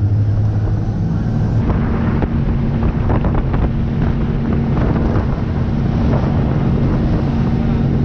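Small motorboat's engine running steadily under way, with wind noise on the microphone and rushing water; the engine note shifts about a second and a half in.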